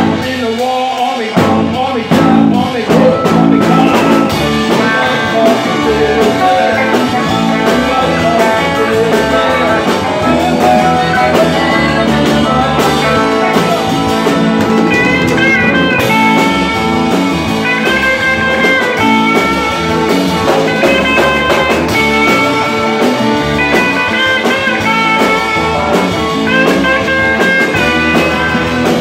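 Live rock and roll band: a Telecaster-style electric guitar plays a lead solo with bent notes over bass guitar and drums.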